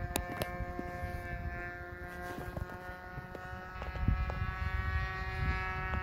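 The 30cc engine of a radio-controlled Dauntless model airplane in flight, a distant drone holding steady pitch. Wind buffets the microphone, getting stronger in the second half.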